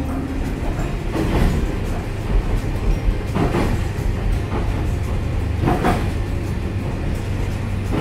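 Rail car running: a steady low rumble, with a louder rushing swell about every two seconds.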